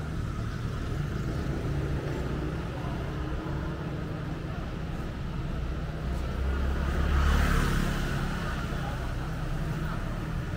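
Street traffic: a steady low rumble of road vehicles, with one vehicle passing close and loudest about seven seconds in before fading.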